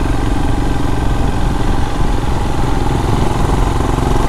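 Royal Enfield motorcycle engine running steadily under way, heard from the rider's own bike, with wind and road noise.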